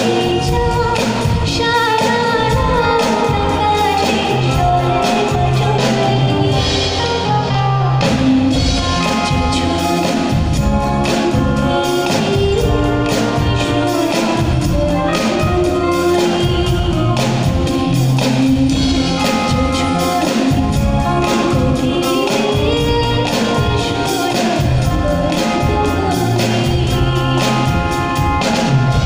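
Live band playing a song with a steady beat: a woman singing over drum kit, keyboard, electric guitars and bass guitar.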